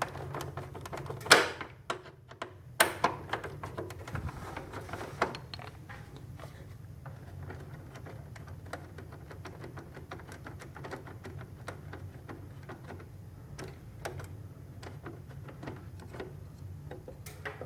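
Screwdriver and hands working on the plastic casing and screws of a split air-conditioner indoor unit: a run of small clicks and taps, with two sharper knocks in the first three seconds, over a low steady hum.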